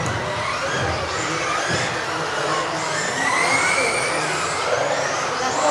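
Several electric off-road RC buggies racing together. Their motors whine and rise and fall in pitch with the throttle, overlapping one another over a steady hiss.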